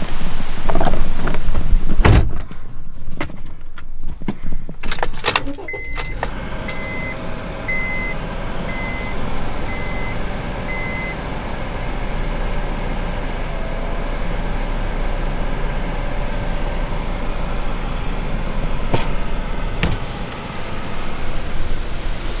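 Thunderstorm gust-front wind buffeting the microphone with a few knocks, then a car door shutting; a car's warning chime beeps about six times, and a steady rush of wind follows around the car.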